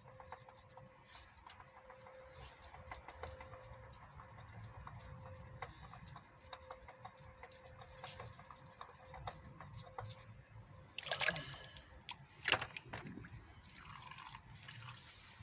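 Engine oil dripping from the loosened oil filter, a faint run of irregular small drips. A few louder knocks and rustles come near the end.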